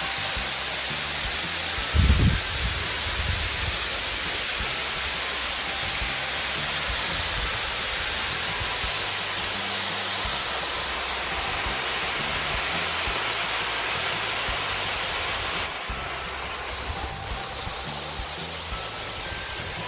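Waterfall's steady rush of falling water. A brief low thump about two seconds in, and the sound drops a little and suddenly near the end.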